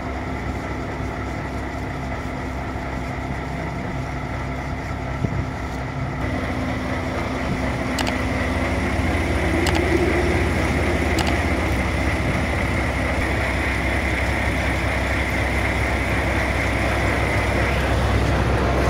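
An engine running steadily, with a few light clicks over it; it gets a little louder about a third of the way in.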